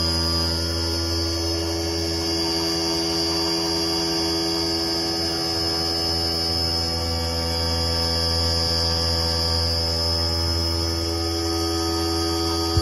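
Retrofitted Brother TC-227 CNC machine running steadily while it mills bolt pockets in a metal plate: a constant hum with several steady whining tones from the spindle drive, one of them high-pitched.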